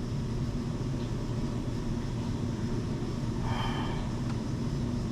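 Steady low hum and rumble of background noise, with a brief faint higher sound a little past the middle.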